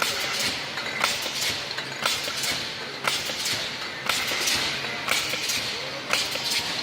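Fully automatic aerosol filling machine running through its cycle: a sharp clack about once a second, with hissing bursts of compressed air between them.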